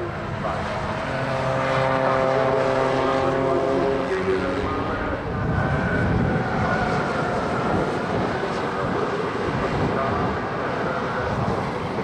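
Race car engines passing at speed. For about five seconds one engine holds a steady note. Then a rougher, noisier engine sound comes in as a Porsche 935 race car goes by.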